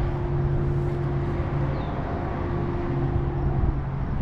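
A steady mechanical hum with a constant low drone, joined by a higher steady tone that stops shortly before the end.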